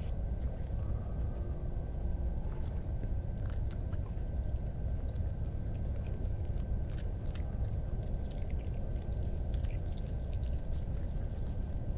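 Red fox chewing and crunching food from the ground, a scatter of small sharp clicks over a steady low rumble and hiss from the trail camera's microphone.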